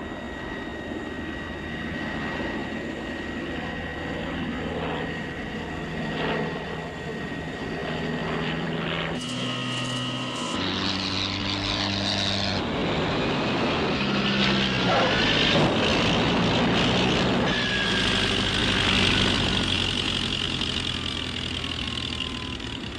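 Film sound effects of a Tiger Moth biplane's propeller engine with jet engines blasting: a steady engine drone joined by a louder rushing jet noise from about nine seconds in, and a falling whine near the end.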